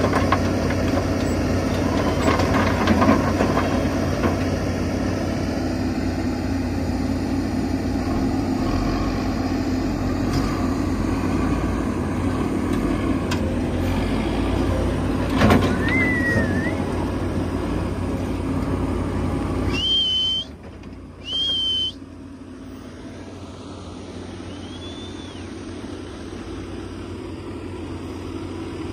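Diesel engine of a Volvo EC210 excavator running steadily under load while it loads rock into an articulated dump truck, with clatters of rock dropping into the steel dump body about two to three seconds in and again about fifteen seconds in. At about twenty seconds the engine noise cuts off abruptly, followed by two short high toots.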